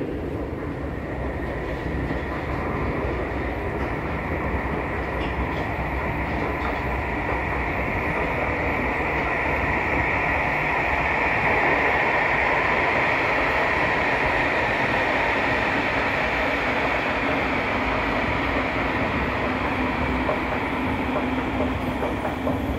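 U-Bahn train running through the underground station: a steady rumble with a whine that swells to its loudest about halfway through, then eases slightly.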